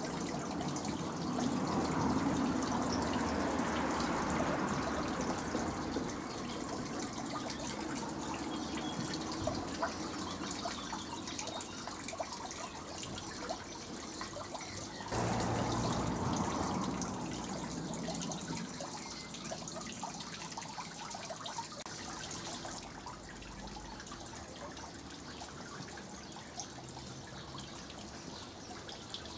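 Small garden-pond fountain splashing and trickling into its water, a spray jet and a frog figure's thin stream falling into the basin. It gets suddenly louder about halfway through, then slowly fades.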